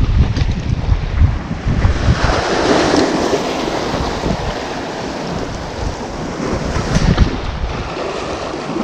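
Small waves breaking and washing over shoreline rocks, with wind buffeting the microphone. A wave surges and hisses over the rocks about two seconds in.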